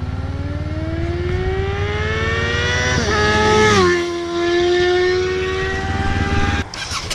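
Vehicle engine accelerating, its pitch climbing steadily for about three seconds, then dropping sharply at a gear change and running on at a nearly steady pitch, over a low steady rumble.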